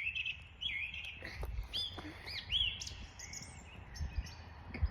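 A small songbird chirping repeatedly in short arching notes, with a few faint clicks and a low rumble underneath.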